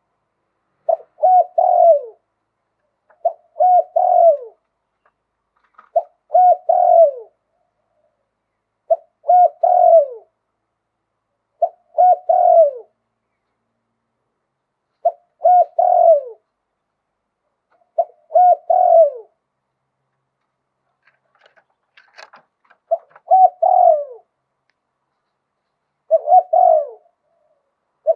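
Spotted dove cooing in repeated phrases about every three seconds, each a few short notes and a longer coo that falls at the end, in the cadence Thai keepers call 'liu tan'. There is a longer pause about two-thirds of the way through, with a faint click.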